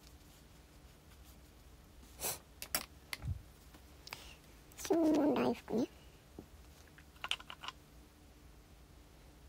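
Light clicks and taps of small objects handled on a desk: a few around two to three seconds in, one with a dull knock, and another small cluster near the end. About five seconds in comes a short wavering vocal sound, under a second long and the loudest thing here.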